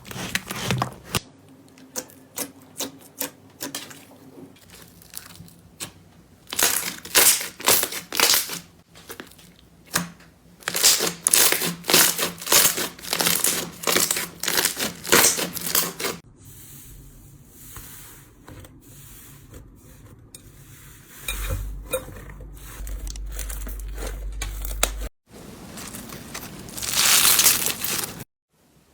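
Slime being squeezed and pressed, making dense runs of sticky clicks and crackling pops that change abruptly every few seconds. A low hum runs under it for a few seconds near the end.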